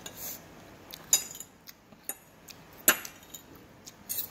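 Metal fork and spoon clinking and scraping against a ceramic plate as noodles are stirred up: a few short clinks, the loudest about three seconds in.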